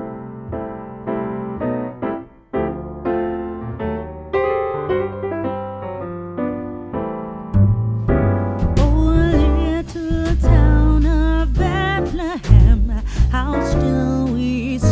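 Background music: a song that opens with solo keyboard chords, then a heavy beat with bass and a singing voice join about halfway through.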